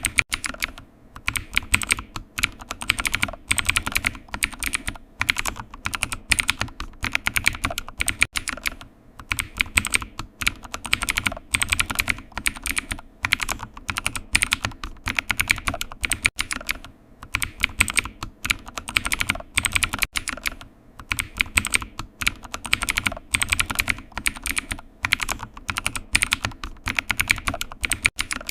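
Typing on a computer keyboard: fast runs of key clicks broken by brief pauses.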